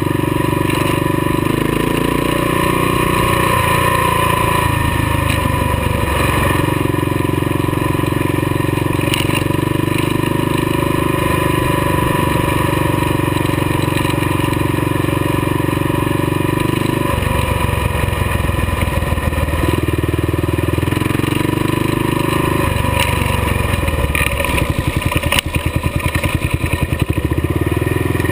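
Kawasaki KLR dual-sport motorcycle's single-cylinder engine running under way, heard from on board the bike. The engine note shifts pitch a few times with the throttle, and near the end it runs with an uneven, pulsing beat.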